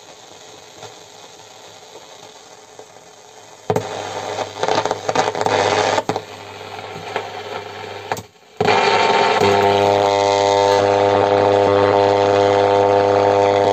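A VEF-214 portable transistor radio's loudspeaker: a faint hiss, then from about four seconds in loud crackling static as the set is tuned, a brief cut-out, and then a loud steady buzz with a row of even tones.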